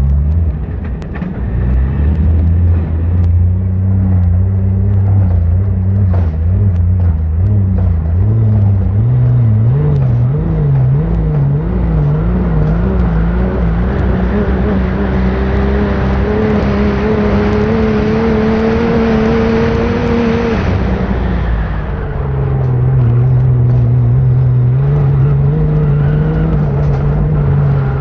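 Off-road vehicle engine pulling hard across sand dunes. The revs climb steadily through the middle, drop suddenly about three-quarters of the way in, then hold lower and steady.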